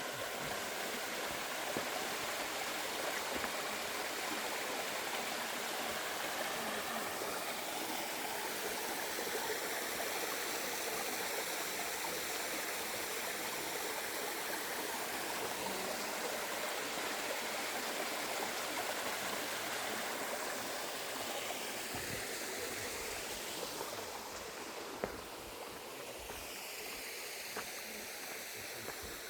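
Steady rushing of water pouring down the Steinhöfer Waterfall's stone cascade, easing slightly in loudness later on, with a single sharp click near the end.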